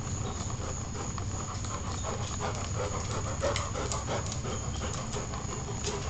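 Dog panting in quick, rhythmic breaths, starting about two seconds in, over a steady low hum.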